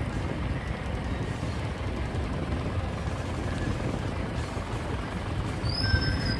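Engine of a small decorated flatbed truck running as it drives slowly past, a steady low rumble with road noise. A brief high squeal comes near the end.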